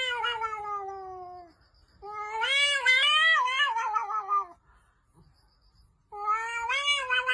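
A domestic cat yowling: three long calls, the first sliding slowly down in pitch, the second wavering up and down, the third starting near the end.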